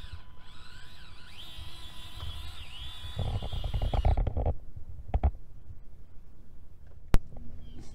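Axial SCX24 micro crawler's small brushed motor and geartrain whining, the pitch rising and dipping as the throttle changes, then stopping about four seconds in. A low rumbling noise comes in around the third to fourth second, and there is a sharp click near the end.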